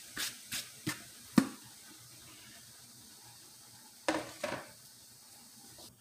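A bowl knocked several times against the rim of a saucepan as the last of the dried trim is shaken out, then two more knocks about four seconds in, over a faint steady sizzle of hot coconut oil.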